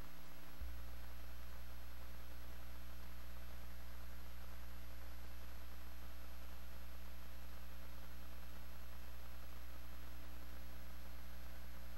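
Steady electrical mains hum with faint hiss from a blank video signal, with no programme sound. The low hum steps up a little under a second in.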